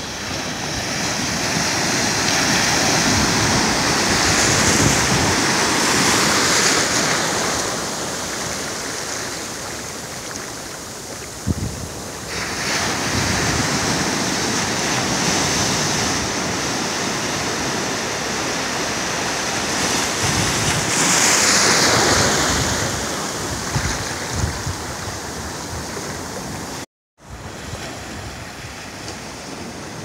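Atlantic surf: small waves breaking and washing in over shallow water on a sandy beach, the rush swelling and easing in three long surges. The sound drops out for a moment near the end.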